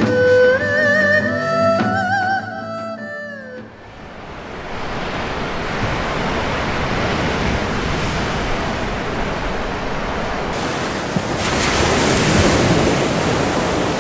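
Music ends with a falling glide about three and a half seconds in. It is followed by the steady rush of sea surf, which swells once near the end.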